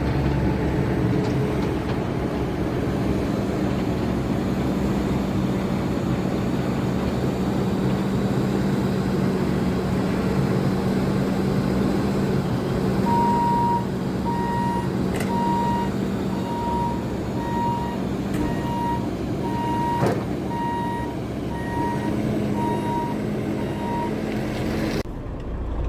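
Truck engine running steadily with an even hum. From about halfway, an electronic beep sounds about once a second, a dozen times or so, like a reversing alarm.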